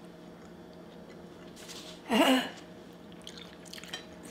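Faint mouth sounds of people chewing sushi over a steady low hum, broken about two seconds in by one short breathy vocal sound.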